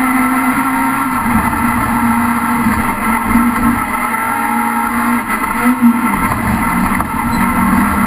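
Rallycross car's engine heard from inside the cockpit at full race pace, running hard with its pitch dropping and climbing again a few times as the driver lifts or changes gear. A sharp thump near six seconds in is the loudest moment.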